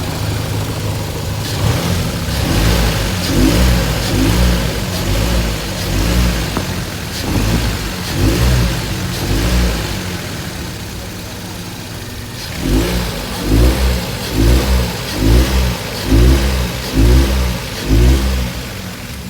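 2016 Ford Escape engine idling, then revved in quick throttle blips, two runs of about seven blips each, the second run faster. This is the kind of revving used to test for worn motor mounts.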